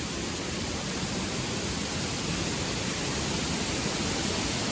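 River water rushing steadily over rocks, an even, unbroken noise.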